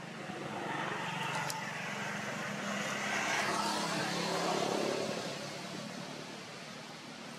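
A motor vehicle passing by: its noise swells up, peaks in the middle with a falling pitch, and fades away.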